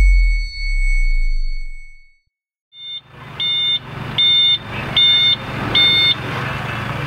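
A deep sound-effect boom with a ringing tone fades out over the first two seconds. After a brief silence, a truck engine runs steadily while a reversing alarm beeps four times, about one short beep every 0.8 seconds.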